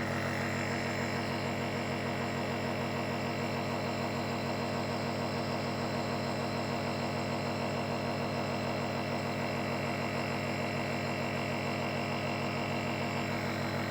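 Compressor nebulizer running with a steady mechanical hum, misting medicine for a cough.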